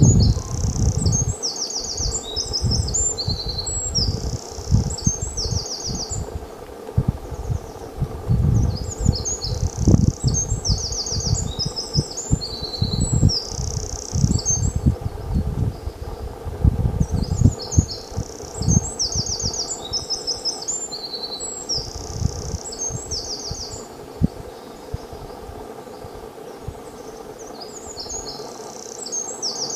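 A small songbird singing high phrases of rapid, repeated trilled notes, each a few seconds long, with pauses of several seconds between them, over a low, uneven rumble.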